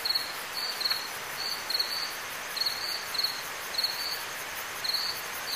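Crickets chirping: short paired chirps at a high pitch, repeating about once a second over a steady hiss.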